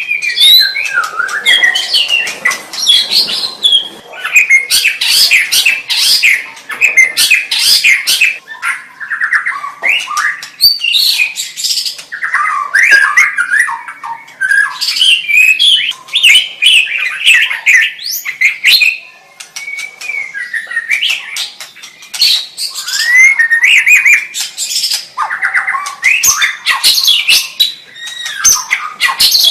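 White-rumped shama (murai batu) singing a long, varied song of loud whistles, gliding notes and fast trills, with harsh rattling phrases mixed in and a short pause about two-thirds of the way through.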